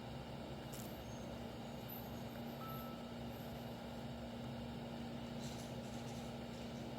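A steady low mechanical hum over an even background noise, with a few faint clicks about a second in and again around five and a half seconds in.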